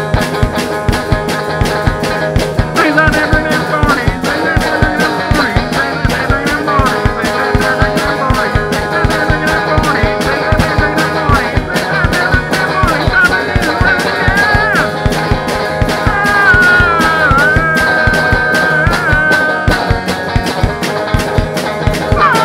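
Instrumental break in a band song: a fast, steady drum beat under guitar, with a lead melody line that bends up and down in pitch.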